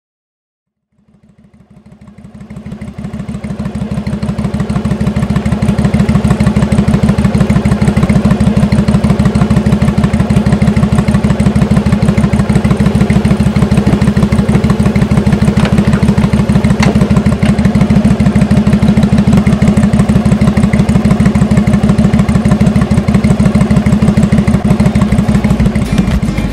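Motorcycle engine idling with a steady, even beat, fading in over the first few seconds.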